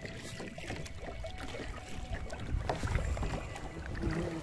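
Small waves lapping and splashing against a plastic kayak hull in irregular little slaps and taps, with wind rumbling on the microphone.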